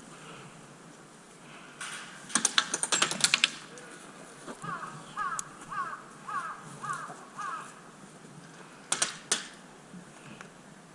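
Airsoft guns firing: a quick run of about a dozen sharp snapping shots, then two more shots near the end. In between, a bird calls six times at an even pace.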